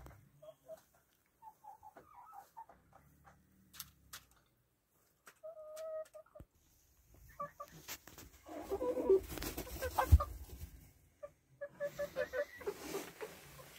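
Bantam Cochin chickens clucking in short runs of notes, with one longer drawn-out call about five and a half seconds in. A louder stretch of rustling comes around nine to ten seconds in, with a sharp knock, the loudest sound here.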